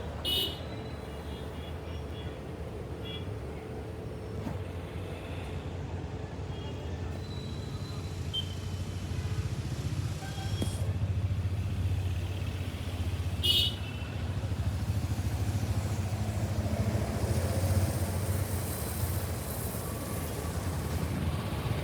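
Steady low rumble of a road vehicle in motion, with a short sharp click just after the start and another about thirteen seconds in.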